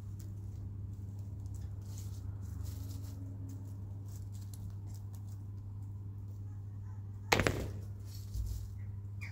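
Chickens moving about in a coop: faint scratching, pecking and feather rustling over a steady low hum. A sudden loud knock about seven seconds in, then a softer thump a second later.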